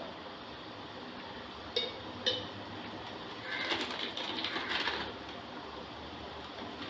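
Tamarind water simmering in a pan, a faint steady bubbling that swells a little past the middle, with two light clinks about half a second apart a couple of seconds in.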